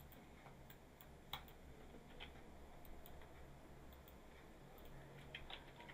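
Near silence broken by a dozen or so faint, scattered clicks of a computer mouse and keyboard, over a low, steady background hum.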